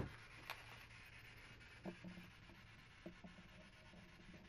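Near silence: room tone with a sharp click right at the start, then a few faint clicks and rustles of people moving and handling equipment.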